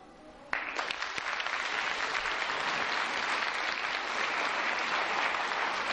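Audience applauding, breaking out suddenly about half a second in and going on steadily.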